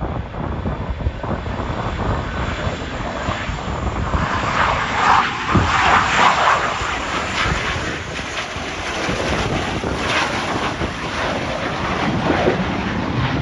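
F/A-18 Hornet fighter jet's twin engines on landing approach with gear down, passing low: steady jet noise that swells to its loudest about five to seven seconds in as the jet goes by, then eases off.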